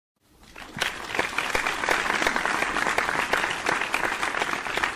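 Crowd applause with many hands clapping at once. It fades in over the first second and then stays steady.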